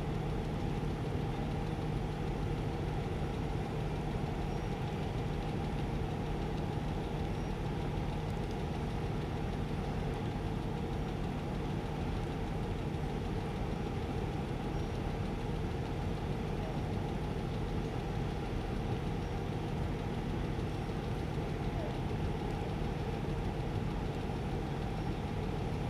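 An engine idling steadily: a continuous, even low hum with no changes in speed.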